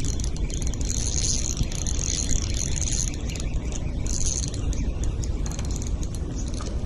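Spinning reel being cranked to retrieve line, a whirring with fine rapid ticks that comes in spurts of about a second, over a steady low rumble of wind on the microphone.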